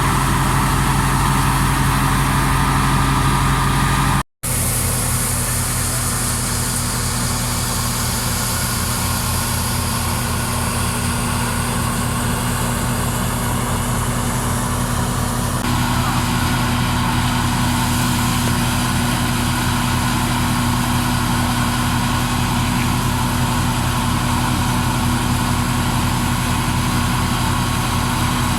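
Tractor engine running steadily, driving a wheat thresher, with a low, even engine beat throughout. The sound cuts out for an instant about four seconds in.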